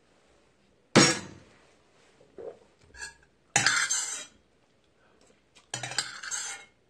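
A glass soju bottle set down on the table with a sharp knock about a second in, then a metal utensil scraping and clinking in a stainless steel bowl in two short bursts.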